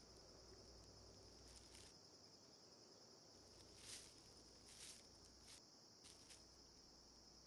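Faint, steady high-pitched drone of summer insects, with a few soft footsteps on grass.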